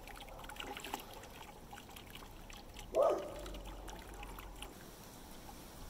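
Thin stream of well water from a pump's discharge hose pouring and trickling into a plastic 5-gallon bucket. A brief louder sound comes about halfway through.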